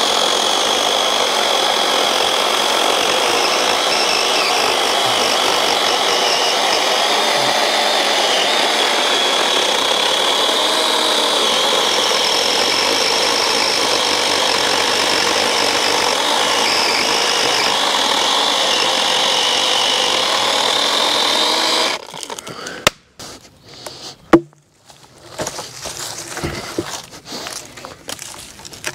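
Dewalt DCCS620 12-inch battery chainsaw running under load, its electric motor whine and chain cutting through a downed log, the pitch wavering a little as the cut goes on. About 22 seconds in the saw stops suddenly, and a few sharp knocks and some rustling follow.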